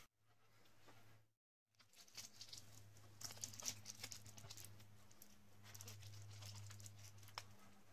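Tape being peeled off the edge of a painting on paper, a faint crackling tear over a low steady hum.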